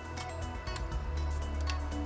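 Background music with a steady low bass line.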